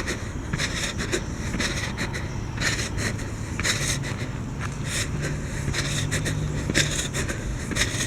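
Footsteps on a nature trail, about one step a second, each a short scraping stroke, over a low steady hum.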